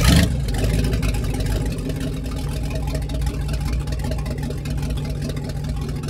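Boat engine idling steadily with an even pulse, after a loud burst right at the start.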